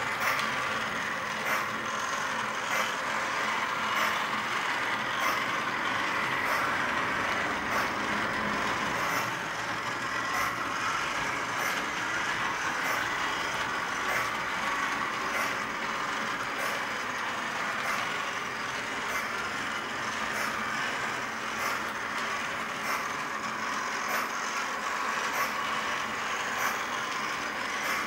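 Lionel LionChief James O-gauge electric model locomotive running steadily around the track, its motor and wheels giving a steady whirring rumble, with a light click a little over once a second.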